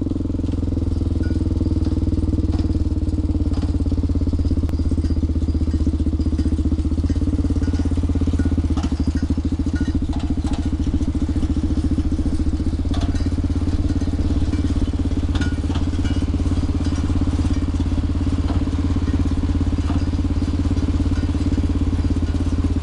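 John Deere 3020 tractor engine running steadily while pulling a New Idea round baler through hay, a low even drone with a few faint clicks and rattles over it.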